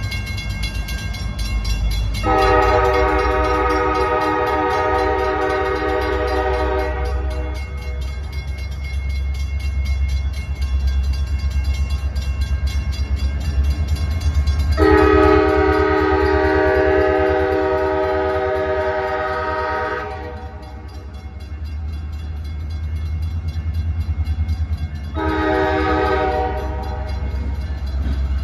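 Freight locomotive's air horn sounding for a grade crossing: two long chord blasts and a short one, over a steady low locomotive rumble. A crossing bell rings rapidly throughout.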